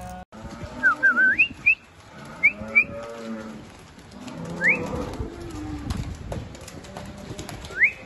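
Holstein dairy cows mooing low in the barn, overlaid by several short, high rising chirps, the loudest sounds: a quick run of them about a second in, two near two and a half seconds, one near five seconds and one just before the end.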